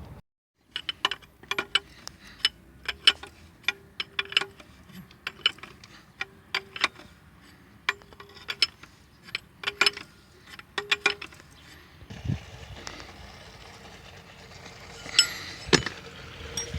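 A quick, irregular series of sharp metallic clicks and clinks from hand tools working on metal engine parts, several ringing briefly. Near the end the clicking stops and a few heavier knocks follow over a steady hiss.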